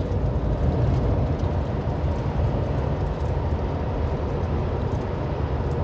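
Steady low rumble of a semi truck on the move, heard inside the cab: diesel engine drone mixed with road and tyre noise.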